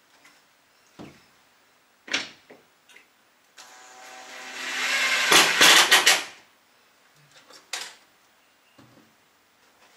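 Cordless drill running for about three seconds into the timber pelmet at its bracket, getting louder until it stops suddenly. A few sharp knocks and clunks come before and after it, the loudest about two seconds in.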